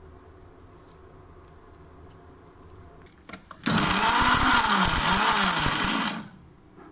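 Indian mixer grinder (mixie) running in a short burst of about two and a half seconds, starting a little past halfway and stopping abruptly, its motor pitch rising and falling as it coarsely grinds whole black pepper, cumin, coriander leaves and curry leaves. A few light clicks come just before it starts.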